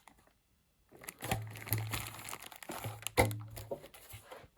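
Crinkling and rustling of packaging being handled, with a few sharp clicks, starting about a second in.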